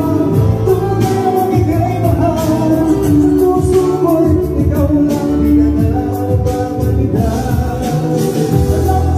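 Live band playing amplified music with a singer, drums and guitar.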